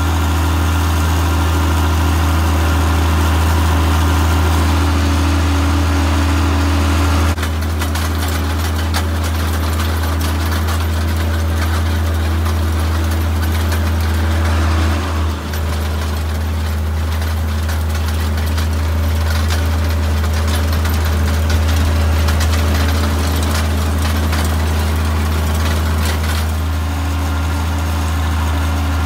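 International Harvester 686 tractor's engine running steadily while it pulls a John Deere 700 hydraulic hay rake, heard from the operator's seat beside the exhaust stack: a loud, even low drone with a brief dip about halfway.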